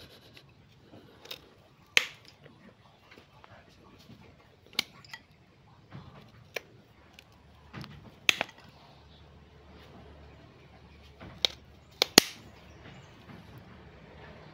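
Steel bonsai cutters snipping through woody roots and stubs of a collected tree, a sharp snap every few seconds with two in quick succession about twelve seconds in.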